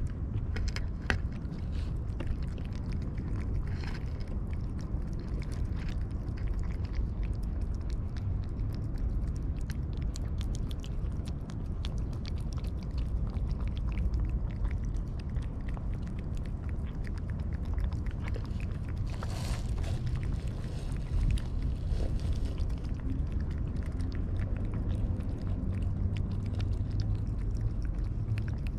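Cats eating close by, their chewing making many small irregular clicks, over a steady low rumble.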